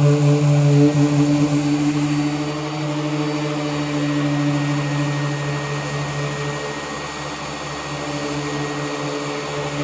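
Electric power sander running steadily on a car body panel: a constant motor hum that drops a little in level partway through and picks up again near the end.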